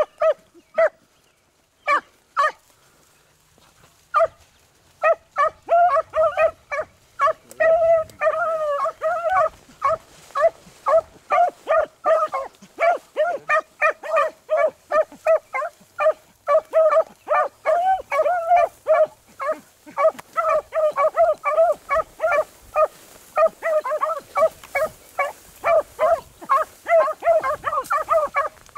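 Beagles giving tongue on a rabbit trail. There are a few single barks, then from about five seconds in a fast, steady run of short, pitched bays, several a second, as the hounds work the scent.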